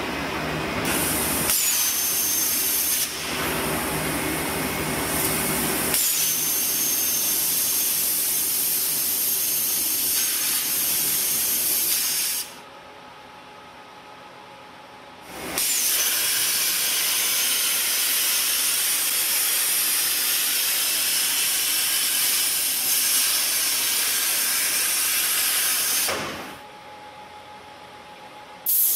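Loud steady hiss of a CNC cutting torch's gas jet cutting steel plate, with a faint high whine, in several segments that stop and start abruptly. About halfway through and again near the end the hiss drops out, leaving a quieter low hum.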